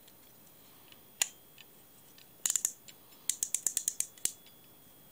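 Ratchet clicks of the click-and-pawl check on a 1960s Japanese copy of a Pflueger Medalist fly reel as the spool is turned by hand. A single sharp click comes first, then a quick run of a few clicks, then a longer run of about eight clicks in a second.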